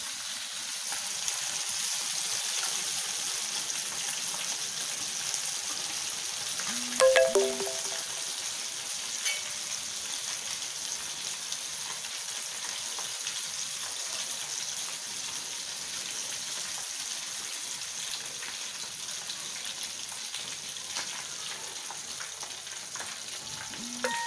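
Potato vadas coated in water chestnut flour batter, deep-frying in hot oil with a steady sizzle. A short louder sound breaks in about seven seconds in.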